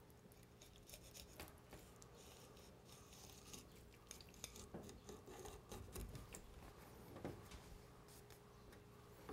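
Faint, intermittent scraping and ticking of a kitchen knife cutting along the bones of a red sea bream on a wooden cutting board while it is being filleted.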